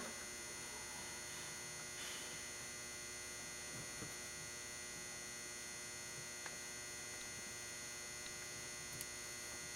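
Faint, steady electrical hum with a few faint, sparse ticks.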